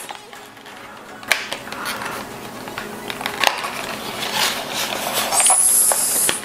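White cardboard watch box being opened and handled: a sharp click, then rustling and scraping of cardboard with light clicks, and a smooth sliding rasp near the end as parts of the box slide against each other.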